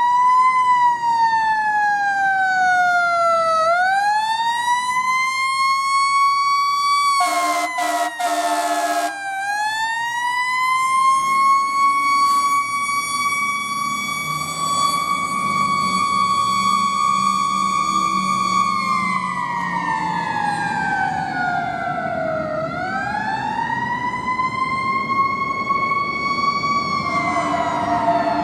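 Fire engine siren wailing in long, slow sweeps, its pitch rising, holding, then falling again. A horn blasts for about two seconds around seven seconds in, and a horn sounds again near the end.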